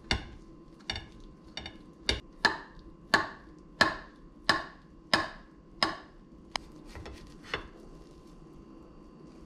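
Kitchen knife cutting through a potato pancake on a ceramic plate, the blade clicking against the plate about a dozen times at a steady pace, the last two fainter, then stopping.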